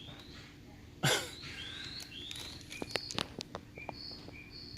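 Bird chirping in short rising notes over and over, with a loud falling sweep about a second in and a few sharp clicks later.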